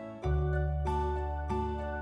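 Background music: a gentle tune of plucked notes, a new note roughly every half second, over a low held bass note that comes in about a quarter second in.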